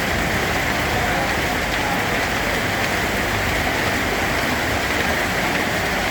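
Steady rain falling and pattering on a surface, an even hiss of many drops with no let-up.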